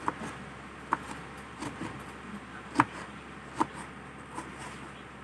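Kitchen knife knocking on a cutting board while slicing a tomato: about six short, sharp knocks at uneven intervals, the loudest a little past the middle.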